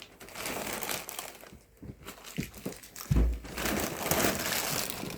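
Packaging being handled during an unboxing, crinkling and rustling in bursts, with a dull low thump about three seconds in.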